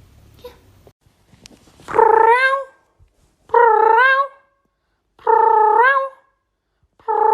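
A pet animal calling four times at even intervals. Each call lasts under a second, is pitched, and rises at the end.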